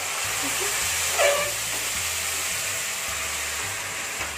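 Liquid moong dal poured into hot oil with tempered cumin and green chillies, sizzling in a steady hiss that slowly dies down near the end. A brief falling squeak about a second in.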